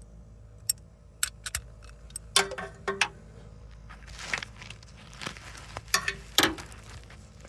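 Irregular metallic clinks and taps, a few briefly ringing, from hand tools and a starter mounting bolt being worked into place.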